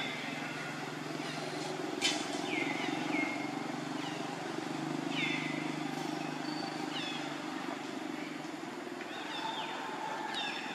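Long-tailed macaques giving repeated short, high squeals, each one dropping quickly in pitch, scattered through with a cluster of them near the end. A sharp click comes about two seconds in, and a low steady hum runs underneath.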